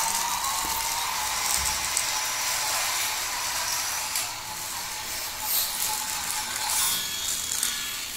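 Battery-powered toy Thomas train's small geared motor running as it travels along its plastic track: a thin whine with a rattle of gears and wheels.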